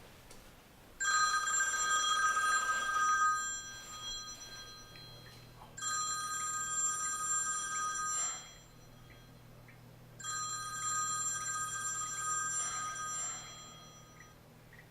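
Telephone ringing three times, each ring a steady electronic trill of two to three seconds with short pauses between; the first ring is the loudest.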